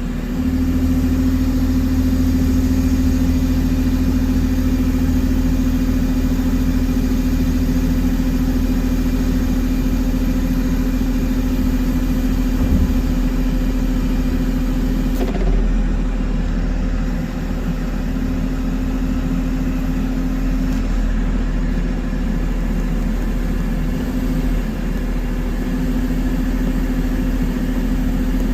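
Diesel engine of a John Deere 333 loader running steadily with a constant low tone, heard from the operator's seat. The engine comes up in speed right at the start, then holds steady with slight dips in speed about 15 and 18 seconds in.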